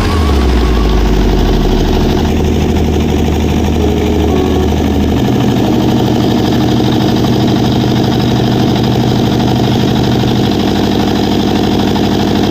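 Hyundai 85A excavator's diesel engine running steadily. Its drone steps up or down in pitch a few times as the hydraulic load changes.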